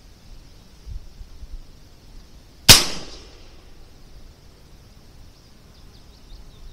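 AirForce Texan .50-caliber big bore air rifle firing a single shot about two and a half seconds in: one sharp, loud report with a short fading tail.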